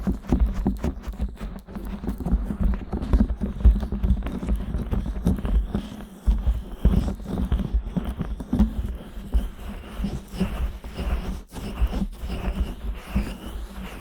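Hands and fingers rubbing, kneading and pressing on the silicone ears of a 3Dio binaural microphone, giving close, dense rubbing with frequent low thumps.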